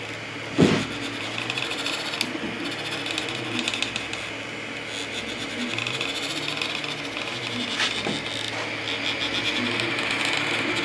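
3D printer at work: its stepper motors sing in short tones that change pitch as the print head moves, over the steady hiss of its cooling fans. A single sharp knock sounds a little under a second in.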